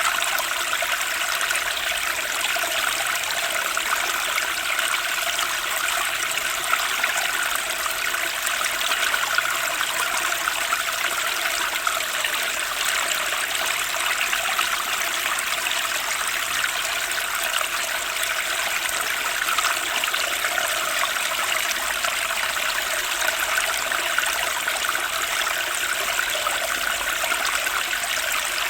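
Turbulent stream rushing, a steady, even sound of fast-flowing water.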